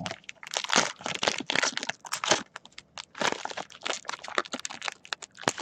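Plastic wrapping on a trading-card pack crinkling and tearing as it is ripped open by hand, a quick run of irregular sharp crackles.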